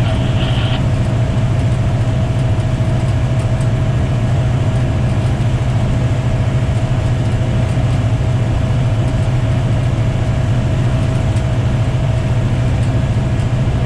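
Diesel locomotive engine running steadily, heard from inside the cab: a constant low drone with a faint steady whine above it.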